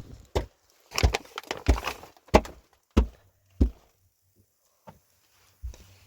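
A run of sharp, heavy strikes at a steady pace, about one every two-thirds of a second, then two more spaced out near the end.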